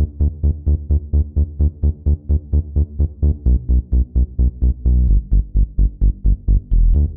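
Electronic dance music with a fast, pulsing beat, heaviest in the bass.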